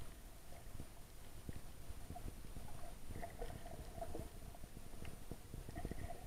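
Muffled underwater sound through a camera's waterproof case: a low rumble with many irregular soft knocks and thuds as snorkelers move and kick in the water close by.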